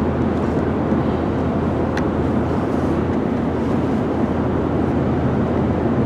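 Steady tyre and road noise with a low engine drone, heard inside a car cabin cruising at highway speed.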